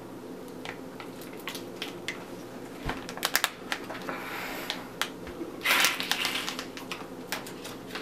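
Capri Sun foil drink pouch crinkling and crackling in the hand as it is squeezed and drunk quickly through its straw, irregular sharp crackles with a louder rustle of foil about six seconds in.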